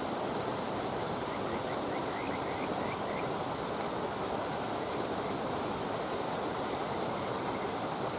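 Wood campfire burning: a steady rushing noise with a few faint high crackles and a scatter of faint, quick high chirps.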